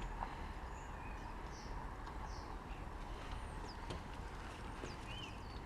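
Faint birds chirping in short high calls over a steady low outdoor background hum, with a few faint clicks from handling small parts.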